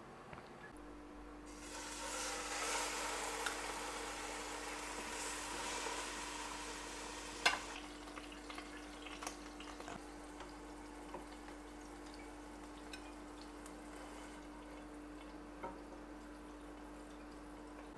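Beef steaks sizzling in hot oil in a nonstick frying pan, loudest for the first several seconds and then settling to a softer fizz with scattered small pops. A sharp click comes about seven and a half seconds in, over a steady low hum.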